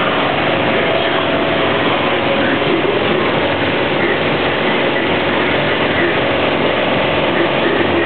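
Integrated washing machine running behind its kitchen cabinet door: a loud, steady mechanical whirr of motor and drum.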